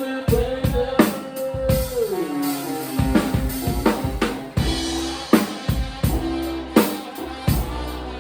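Live band playing, with the drum kit keeping a steady beat under sustained chords. About two seconds in, a held note slides down in pitch.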